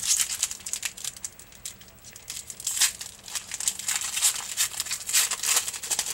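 A hockey card pack's foil wrapper being torn open and handled, a string of irregular crackles that are loudest around three and five seconds in.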